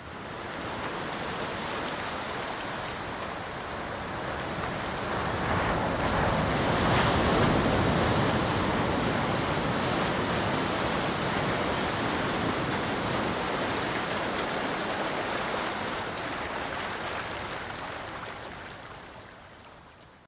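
Ocean surf: a steady rush of waves that swells about six seconds in and fades out near the end.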